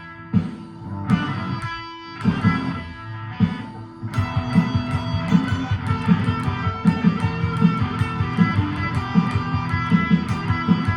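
Electric guitar played over a backing track: a few separate chords struck and left ringing, then from about four seconds in a fast, steady rhythmic picking pattern.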